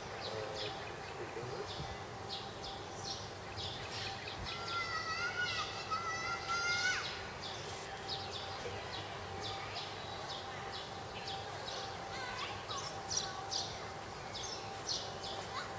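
Outdoor garden ambience with birds chirping in many short, repeated calls over a faint steady hum. A longer wavering whistle-like tone sounds for about two seconds near the middle.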